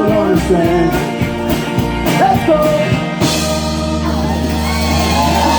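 Live band playing with a singer, with drums striking a steady beat. About three seconds in, the band hits and holds a chord with a cymbal crash ringing over it, the close of the song.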